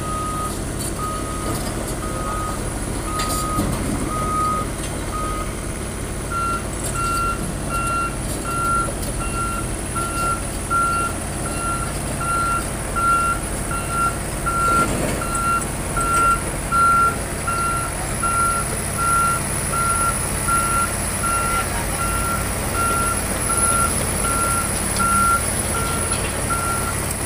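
Reversing alarms beeping over a heavy truck's engine running at low speed. A lower, slower beeper stops about five seconds in, and a higher one beeping about twice a second starts a second later and keeps on.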